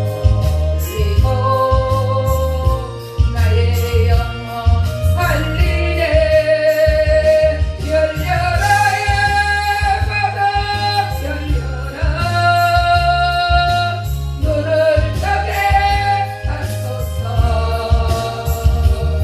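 Gospel song: a sung melody of long held notes over a backing track with a steady, pulsing bass.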